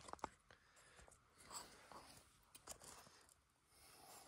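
Near silence, with faint rustling and a few soft clicks from the phone being handled and set down.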